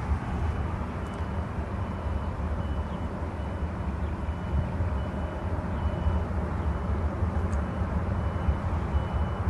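Jet engines of an Airbus A330-200 at takeoff power during its takeoff roll, heard from across the airfield as a steady low rumble.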